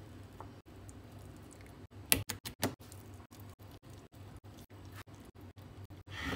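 Kitchen knife cutting through a block of paneer and tapping against a wooden chopping board: a run of short, crisp clicks and knocks, with a few louder taps about two seconds in.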